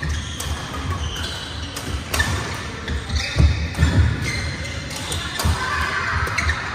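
Badminton doubles rally: rackets striking the shuttlecock with sharp cracks, sneakers squeaking on the court floor, and thudding footfalls, heaviest about halfway through, all echoing in a large hall with play on other courts.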